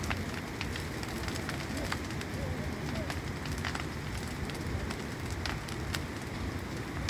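Large open bonfire burning: a steady rushing hiss broken by sharp, irregular crackles and pops.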